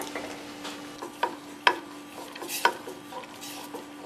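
Sharp clicks and knocks in an aluminium saucepan holding hard licorice pieces in a little water, about half a dozen separate strikes as the pan's contents are worked and stirred, over a steady low hum.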